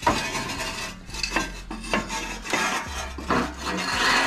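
Rusty steel exhaust pipe being wrestled out through a pickup's frame: metal scraping and clanking against the frame rails, with a series of short knocks.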